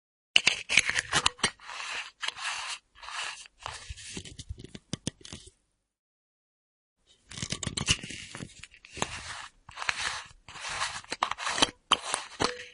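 Screw cap of a full metal flask being turned on its threads, scraping and clicking in short strokes as it is opened and closed. Two runs of a few seconds each, with a silent break between them.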